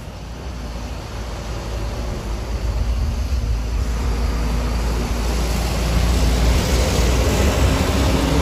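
Diesel engine of an intercity coach bus pulling round a hairpin bend, growing steadily louder as the bus approaches and passes close by, with its engine note rising slightly in the second half.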